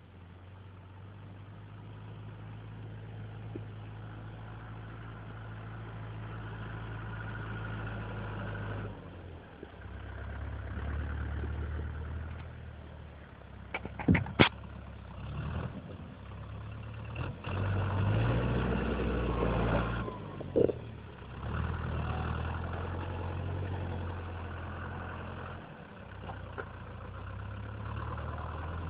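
Diesel engine of a Lamborghini Cross 70 tractor with a front loader running and growing louder as it approaches. It revs up briefly about two-thirds of the way through, and there are a few sharp knocks, the loudest about halfway in.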